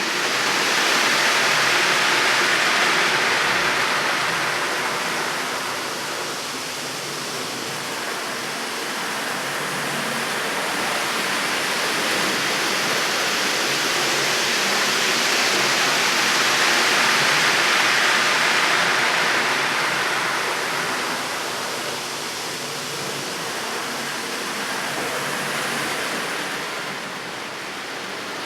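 A steady, fairly loud rushing hiss like falling water, swelling twice and easing a little near the end.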